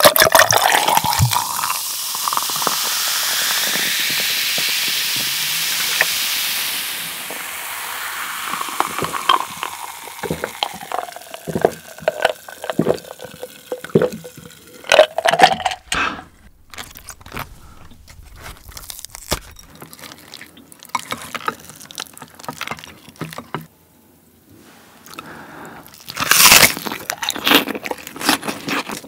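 Cola poured from a plastic bottle over ice into a glass jar, the pour running for about seven seconds with its pitch rising as the jar fills, then the cola fizzing and crackling over the ice cubes. Partway through come sips and swallows from the jar, and near the end a short loud tearing crunch of a napa cabbage leaf.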